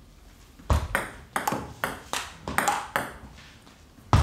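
Table tennis ball clicking back and forth in a fast rally, striking the rubber of the bats and bouncing on the table. There are about nine sharp clicks in two and a half seconds, a short pause, then another sharp hit near the end.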